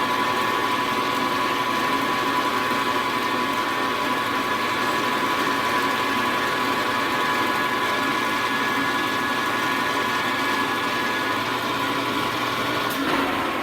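Milling machine running steadily through a finishing cut, its motor and spindle giving a steady whine. The sound changes near the end.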